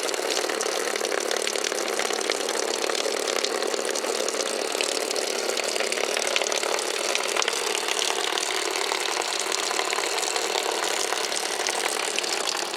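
Old electric fuel pump wired straight to a battery, running steadily as it pumps old gasoline out of a truck's fuel tank. It makes an even whirring buzz with a faint low hum under it.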